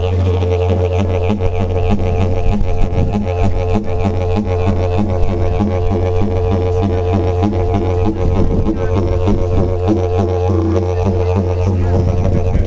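Didgeridoo music: one unbroken low drone with a regular rhythmic pulsing in its overtones.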